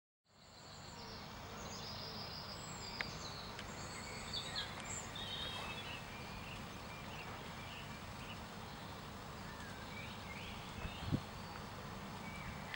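Riverside ambience: a steady low background rush with small songbirds chirping and whistling high, short calls, most of them in the first half. A single low thump comes about eleven seconds in.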